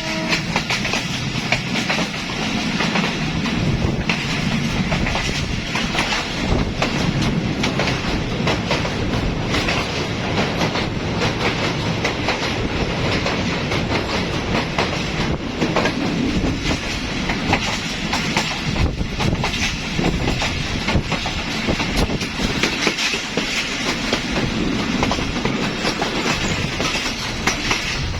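Moen Jo Daro passenger train's wheels running over the rails in a steady, rhythmic clickety-clack of wheel-on-rail clatter.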